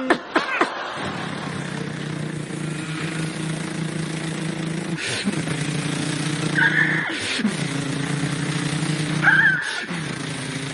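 Human mouth-sound imitation of a motorcycle engine running steadily. The note breaks three times as if shifting gear, and there are two short high squeals.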